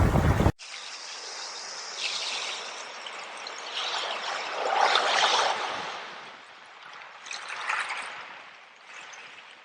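Loud surf and wind cut off abruptly about half a second in. A small stream of water trickling follows, swelling louder and fading a few times.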